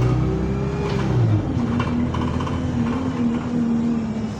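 Bus drivetrain heard from inside the cabin. A steady engine drone cuts out about a second and a half in, leaving a gearbox whine that slowly falls in pitch as the bus slows.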